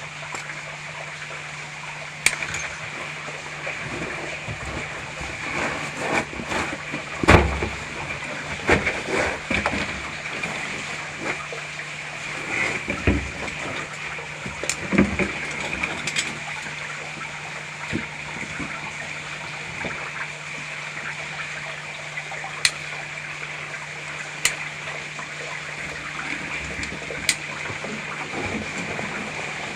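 Rustling and scraping of a caver's clothing and gear against rock as he moves on the rope, with a thump about seven seconds in and several sharp metallic-sounding clicks, over a steady hiss and low hum.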